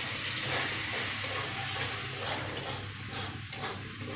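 Wet spice paste of turmeric, salt and chilli powder mixed with water sizzling and hissing in hot oil in a kadai, strongest at first and easing off. A few taps of a spatula against the pan come in the second half.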